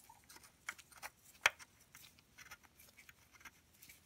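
Faint small clicks and light scraping as a thread sleeve is started by hand into the drilled drain hole of the aluminium PTU housing, with one sharper click about a second and a half in.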